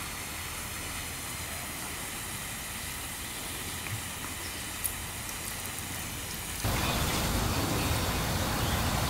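Water spraying from a homemade plastic-bottle sprinkler on a garden hose, a steady rain-like hiss that becomes louder about two-thirds of the way through.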